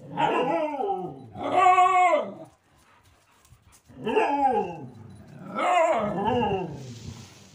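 Dogs vocalising in play: four drawn-out barking, growling calls, each about a second long and mostly falling in pitch, with short quiet gaps between them.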